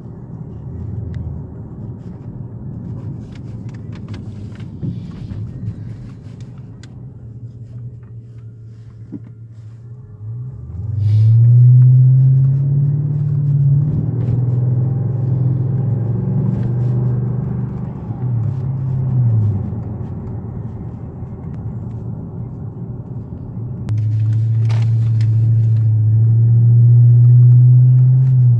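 Mercedes-Benz CLS 500 running and driving with a low rumble. About ten seconds in, its note rises sharply as it pulls away, wavers, then drops back; a steady loud hum returns near the end.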